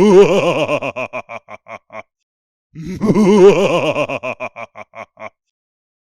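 Mocking, derisive laugh sound effect played twice in a row. Each time a loud wavering voice breaks into a string of short 'ha' bursts that slow down and fade out.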